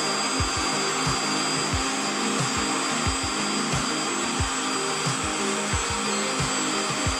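Electric meat grinder running steadily with a sausage-stuffing tube fitted, its motor pushing the pork and fat mix into the casing.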